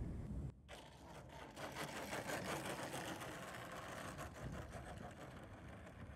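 Gasoline DA-120 engine of a large RC aerobatic plane idling with a fast, even patter, heard through the onboard cockpit camera while the plane rolls along the runway. About half a second in, a louder low rumble drops off suddenly to this fainter idle.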